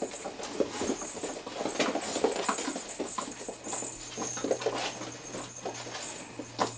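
Six-week-old puppies playing on a hard tile floor: many small clicks and patters of paws and claws, toys knocking about, and brief little puppy grunts and whines.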